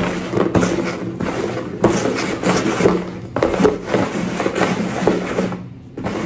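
Upturned plastic bowls being slid and shuffled around on a wooden tabletop: a continuous scraping rub that drops away briefly near the end.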